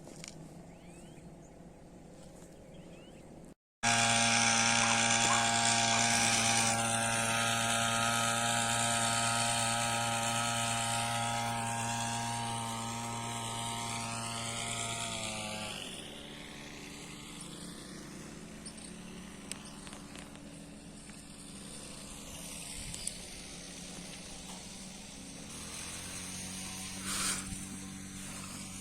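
A small motor running at a steady pitch, starting abruptly about four seconds in; about halfway through, its pitch sags and it settles to a quieter, lower steady hum.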